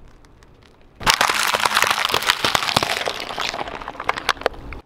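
Brown hen's eggs in a clear plastic tray crushed under a car tyre: starting about a second in, a sudden dense burst of shells cracking and plastic crackling that thins into scattered sharp cracks.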